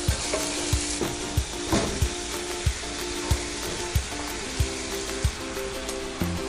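Onions, tomatoes and spices frying in ghee in a cast iron skillet, a steady sizzle, stirred with a wooden spoon. Quiet background music with a steady beat plays underneath.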